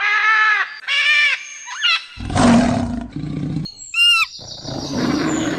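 A quick run of different wild animal calls: several pitched calls and a sliding whistle in the first two seconds, then a deep, rough roar lasting about a second and a half, followed by a fast trill and high chirps.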